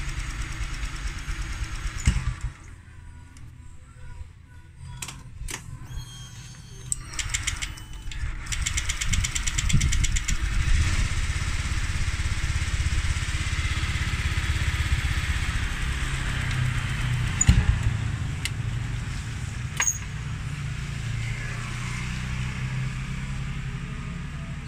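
Honda Vario scooter engine running, cutting out about two seconds in, followed by a few clicks, then starting again about eight seconds in and running steadily.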